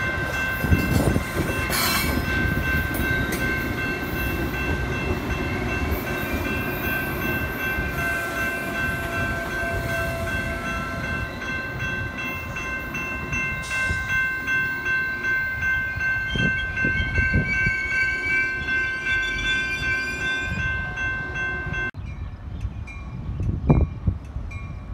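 Metra bilevel commuter train rolling past, with rumbling wheels on the rails, while a grade-crossing warning bell keeps ringing. Near the end the bell and rumble cut off suddenly, leaving a quieter stretch with one sharp loud sound.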